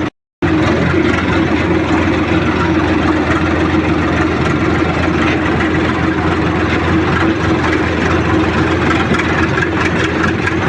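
Farmtrac 6055 diesel tractor engine running steadily on the road, a constant loud drone. The sound cuts out completely for a moment just after the start.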